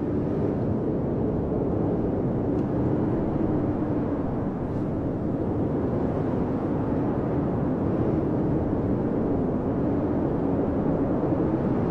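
Blizzard wind blowing in a steady rush, with a low moaning howl that slowly wavers up and down in pitch.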